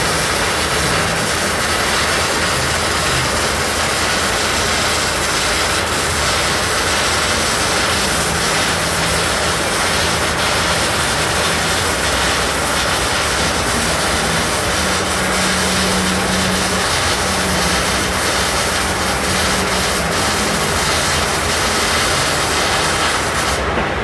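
Electric arc welding: a steady, loud crackling hiss from the arc, with a low machine hum underneath. The crackle cuts off just before the end as the arc is broken.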